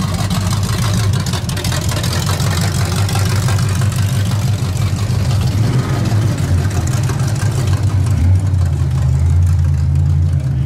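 Classic cars' engines idling past at walking pace, a blue squarebody Chevy pickup and then a red Ford Fairlane, with a steady low exhaust rumble. The rumble is loudest as the Fairlane draws alongside near the end.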